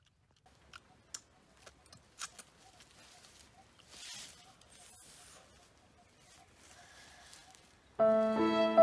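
Soft clicks and rustles of a dry banana leaf being handled while eating, over quiet forest background with a faint, steadily repeating note. Violin music comes in loudly near the end.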